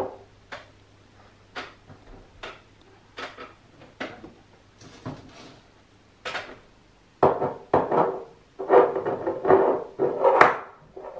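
Small spice jar handled with the feet: scattered light clicks and taps at first, then from about seven seconds in a run of short gritty rattling bursts as it is worked over the pan.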